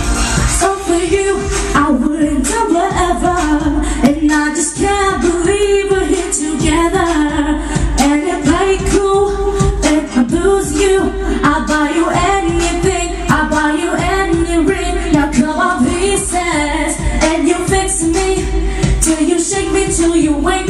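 A young girl singing a pop song into a handheld microphone over a backing track with a steady beat.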